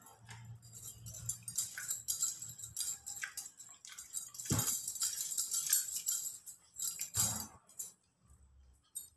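Metal bangles jingling on a wrist and a paper food wrapper rustling as hands move over the meal, with two soft knocks about halfway through and again a little later.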